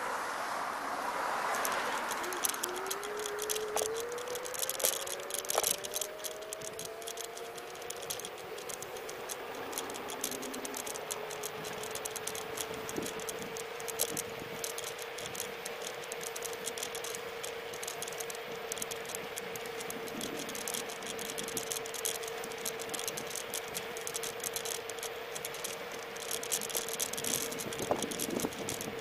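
Xplorer Ambassador electric scooter riding over street pavement: a constant rattle from the scooter and its handlebar, and a motor whine that rises in pitch over the first several seconds as the scooter picks up speed, then holds steady at cruising speed.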